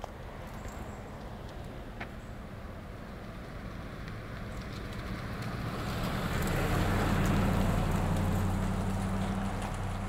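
A car drives past, growing louder over several seconds to its closest about three-quarters of the way through, then beginning to fade. Tyre noise on the road with a low engine hum.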